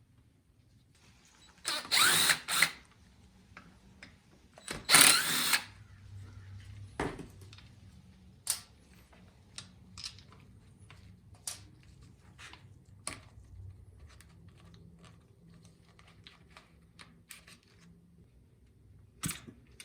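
Cordless drill-driver running in two short bursts, about two and five seconds in, backing out screws. Scattered small clicks and knocks of screws and parts being handled follow.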